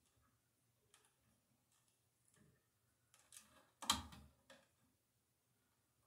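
Faint clicks and rustles of wires and a twist-on wire nut being handled at an electrical box. A short, louder burst of scraping and clicking comes just before four seconds in.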